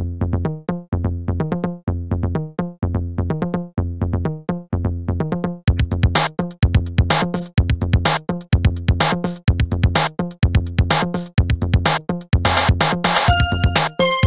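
Electronic tracker music made in PixiTracker, with a steady drum-machine beat and synthesizer notes. About six seconds in it grows louder and fuller, and near the end held beeping notes step in pitch.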